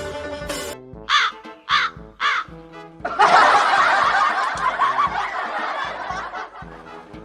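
Background music with three short caw-like calls about a second in. Then comes the loudest part: about three seconds of loud laughter that fades away.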